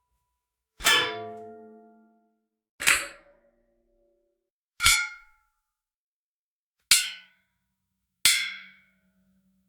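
Metal tines of a hay rake struck, giving five separate clangs about two seconds apart, each ringing out and dying away within a second or so.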